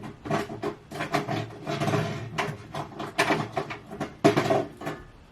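Repeated irregular clicks and knocks of small makeup cases and items being handled and set down.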